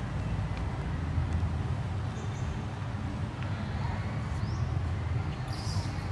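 Low rumble of wind and handling noise on the microphone, with a few faint, short high-pitched chirps.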